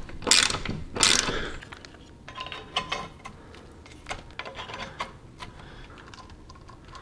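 Hand ratchet clicking and metal clinks as the bolts of a steel TV wall mount are tightened by hand. A couple of louder knocks come in the first second and a half, then lighter, scattered clicks.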